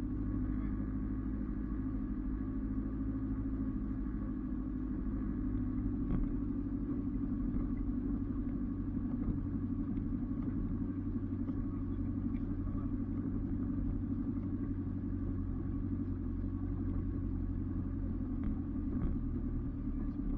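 A 4x4 vehicle's engine running steadily: a low, even drone with a few faint knocks now and then.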